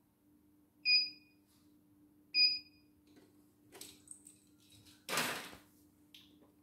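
Two short electronic beeps from a CNY computerised embroidery machine, about a second and a half apart, followed a few seconds later by a brief burst of rustling handling noise. A faint steady low hum runs underneath.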